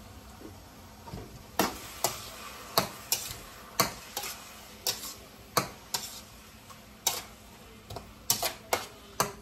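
Spatula knocking and scraping against a frying pan in sharp, irregular taps, about one or two a second, starting about a second and a half in, while bottle gourd is sautéed in butter over a low sizzle.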